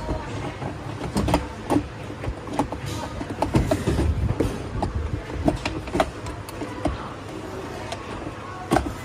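Hard plastic panels being handled and pressed into place: irregular clicks and knocks of plastic on plastic over a low steady background rumble.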